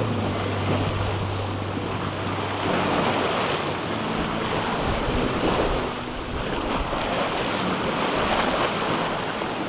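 Sea water rushing and splashing along the hull of a sailboat under way in whitecapped seas, with wind buffeting the microphone. The rush swells and eases every few seconds as the boat meets the waves.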